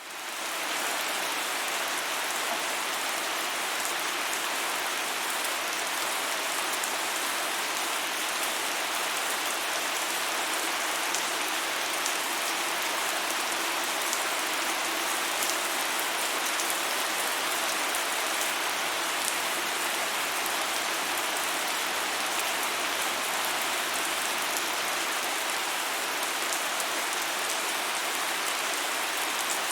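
Steady rain falling on a surface, an even hiss with fine patter of drops, fading in within the first second.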